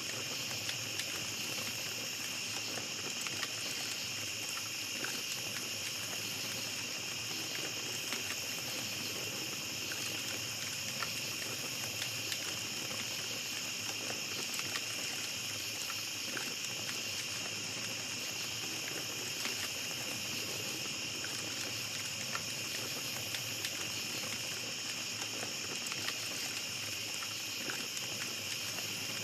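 Night insects, crickets, keep up a steady high chorus over a small campfire crackling, with small sharp pops scattered throughout.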